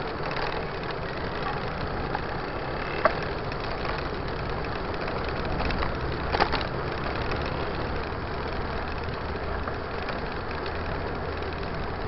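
Steady rumble of street traffic and riding noise picked up from a moving bicycle, with car engines nearby. Two short sharp knocks stand out, about three seconds in and again at about six and a half seconds, the second the louder.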